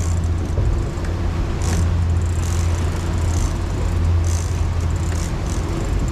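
The catamaran's outboard motors hum steadily at low speed. Water sloshes and splashes against the hull in short hissy bursts.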